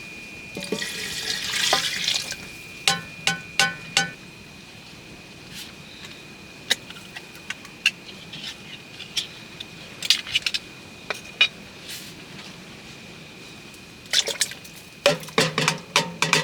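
Water splashing and pouring in short bursts, with sharp drips and ticks between them.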